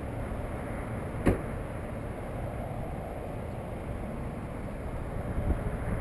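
Steady outdoor rumble of wind on the microphone and passing road traffic, with one sharp knock a little over a second in and a few softer knocks near the end.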